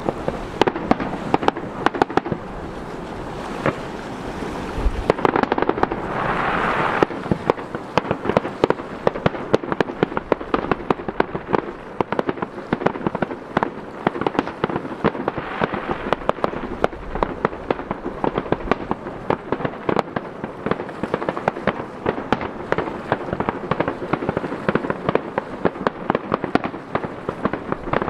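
Fireworks display: aerial shells launching and bursting in a continuous barrage of rapid cracks and bangs, with a louder hissing stretch about six seconds in.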